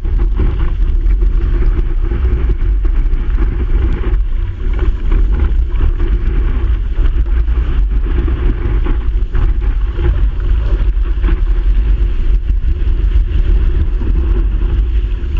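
Steady low rumble of rushing whitewater and wind buffeting a board-mounted camera's microphone as a longboard rides a breaking wave.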